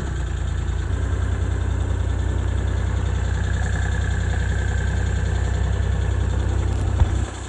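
Engine or motor running steadily at idle, a low even hum. There is a single click about seven seconds in.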